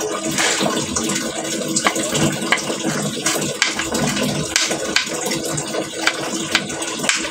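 Knife peeling and slicing a piece of ginger on a small cutting board, making scattered sharp clicks at irregular intervals, over a steady rush of running water.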